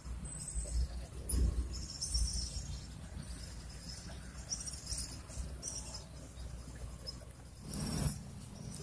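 Outdoor ambience with faint high chirping of insects over a steady low rumble. There is a brief louder knock about a second and a half in, and a louder rustle near the end.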